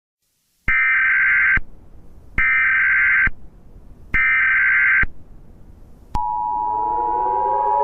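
Emergency Alert System SAME header: three data bursts, each just under a second long, then about six seconds in the steady two-tone EAS attention signal begins, with synthesizer music swelling in underneath. It is the alert sequence that opens a broadcast tornado emergency warning.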